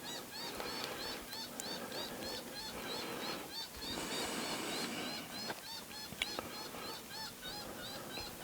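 Predator call sounding a rapid distress cry, short squalling notes that rise and fall, repeated about four times a second without a break.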